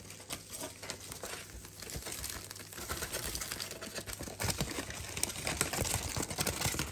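Paper roasting bag holding seasoned chicken pieces crinkling and rustling as it is handled, a dense run of small crackles and ticks that grows louder about halfway through.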